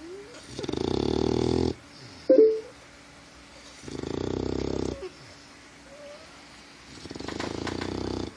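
A sleeping bulldog puppy snoring: three buzzing, rattly snores of about a second each, roughly three seconds apart. A brief, louder sound cuts in between the first two.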